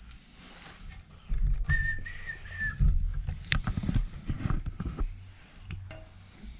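Clunks, knocks and clicks of tools and engine parts being handled during a small-block V8 teardown. About two seconds in, a brief high whistle-like tone holds steady for about a second.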